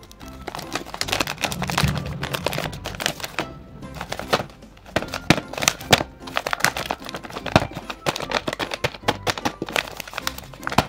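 Paper crinkling and rustling as a handmade paper blind bag is folded and closed: many quick crackles and taps, over background music.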